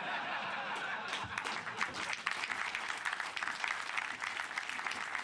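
A roomful of people applauding, a dense, steady clapping.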